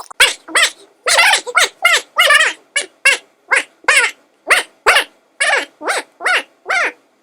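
A dog barking in a rapid, even series of short barks, two or three a second.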